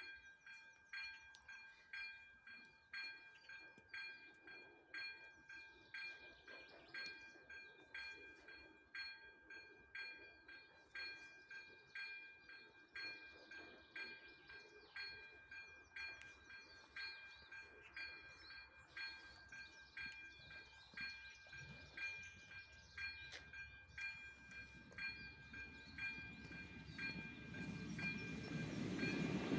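Electronic ZV-02 warning bell of an AŽD 97 level crossing ringing, about one chime a second, each with a steady ringing tone. Near the end a ČD class 810 railbus approaches, its rumble growing steadily louder.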